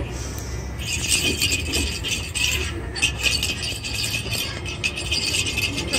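Jingle bells shaken in a continuous, high jingle that starts about a second in, with a brief break near the middle.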